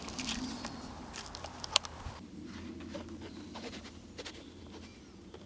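A fixed-blade knife is drawn from a leather belt sheath amid clothing rustle and clicks, with one sharp click a little under two seconds in. Then the blade carves a notch into a small peeled wooden stick in soft scraping slice and stop cuts.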